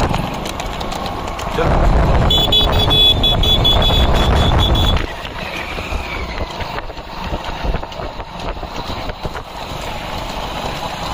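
Motorcycle running at speed with heavy wind rumble on the microphone. About two seconds in, a rapid string of high beeps joins it for about three seconds, after which the rumble eases to a lower, steadier level.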